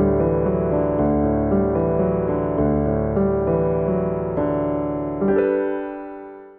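Background piano music playing chords, fading out near the end.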